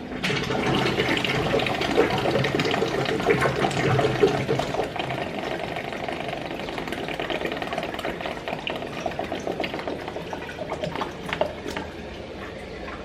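Aquarium return line back-siphoning after the return pump is switched off: water is drawn back down the PVC return pipe toward the sump, a rough, fast gurgling and slurping that is loudest in the first few seconds and fades toward the end. The pipe's end is drawing in air at the water surface, which is what breaks the siphon.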